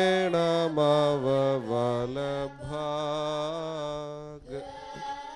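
A man's voice chanting a Syro-Malankara liturgical prayer in long held notes that step up and down, softening to a quieter held tone near the end.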